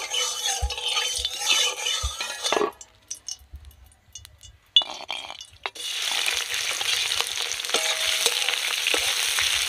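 Mustard oil sizzling in an aluminium kadai as a metal spatula stirs and scrapes it. After a brief lull, raw prawns go into the hot oil about six seconds in, and a loud, steady frying sizzle follows.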